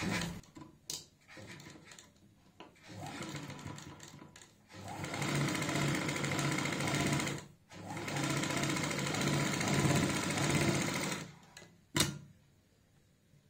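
Household sewing machine stitching along a fabric strip. It runs in two spells of about three seconds each with a brief stop between, after a few light clicks at the start. There is a single sharp click near the end.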